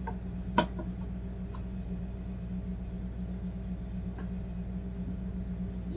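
Forged aluminum pans and glass lids knocking and clinking as cookware is stacked and set down. The loudest is a sharp knock about half a second in; lighter taps come at the start, after about a second and a half, and about four seconds in. A steady low hum runs underneath.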